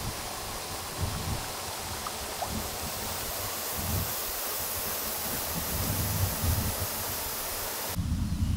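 A shallow river's running water, with splashing as a hand swishes purple cabbage through it to rinse it. The water sound cuts off suddenly near the end.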